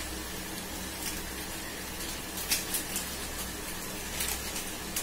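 Shredded cabbage, carrot and onion frying in a kadai: a steady soft sizzle over a low hum, with a few light clicks of the steel spoon against the pan about halfway through and near the end.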